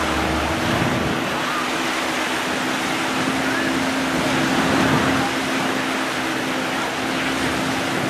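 Sea surf and wind on the microphone as a steady wash, with a speedboat engine humming steadily underneath.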